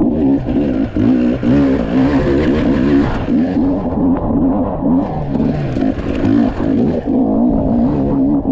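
Off-road motorcycle engine being ridden hard, its pitch rising and falling over and over as the throttle is opened and closed.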